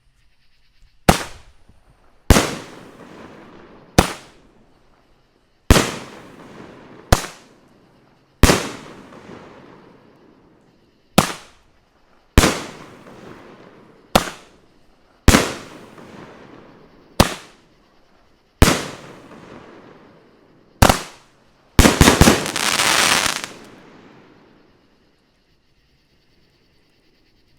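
A 9-shot consumer firework cake firing: sharp mortar launch thumps, each followed a second or so later by a shell bursting with an echoing tail, about thirteen bangs in all. About 22 seconds in a finale of several bangs lands at once with a dense burst of crackling. The shells break low, which the shooter puts down to too little lift charge.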